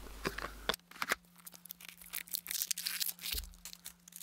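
Small plastic blind-pack capsule being handled and pried open, with faint plastic clicks and the crinkle of the paper wrapping inside; the handling is louder in the first second and quieter after.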